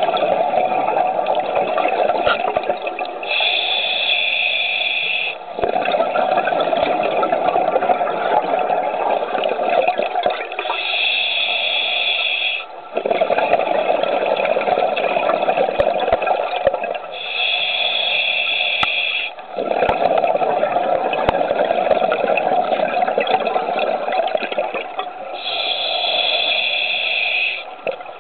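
Scuba regulator breathing underwater: slow, regular breaths, each a short hissing inhale through the regulator followed by a longer rush of exhaled bubbles, about one breath every seven seconds.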